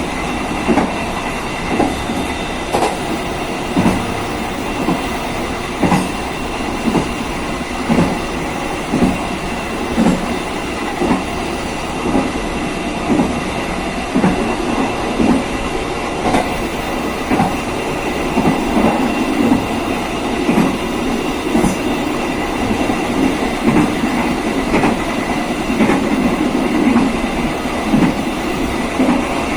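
KA Serayu passenger train running on jointed single track, its coach wheels clacking over the rail joints about once a second over a steady rumble.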